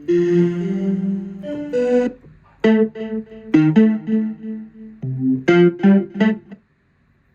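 Yamaha synthesizer sound test: a preset played as short phrases of notes and chords, each starting sharply, stopping briefly near the end.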